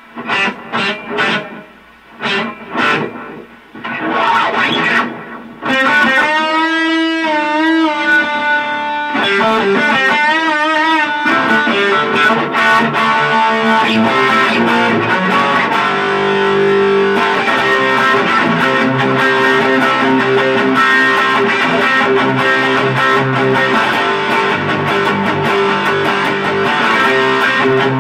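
Electric guitar played through a Boss Katana Mini practice amp. A few short picked notes come first, then held notes with a wavering pitch, then continuous riffing from about halfway through the first half onward.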